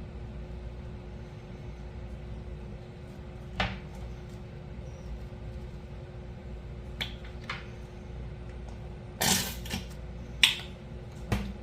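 A fork clinking and tapping on a plate in a few scattered strokes, the loudest about nine to ten and a half seconds in, over a steady low hum.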